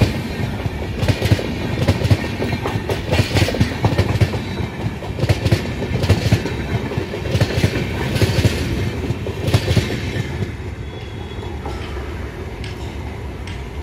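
Express train coaches passing close by at speed, their wheels clattering over the rail joints in quick repeated clusters about once a second. About ten seconds in the last coach goes by and the sound drops to a fading rumble.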